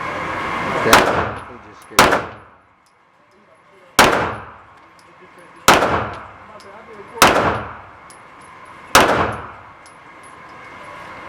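Gunshots fired one at a time, six of them about one every one and a half to two seconds, each sharp crack ringing out briefly before the next.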